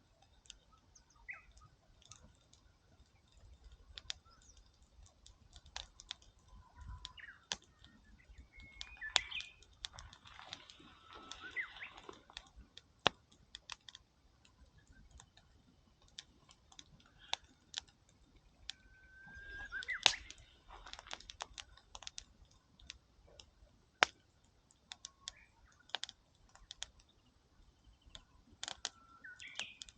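Wood campfire crackling, with sharp irregular pops and two short spells of denser crackle. Birds call briefly now and then.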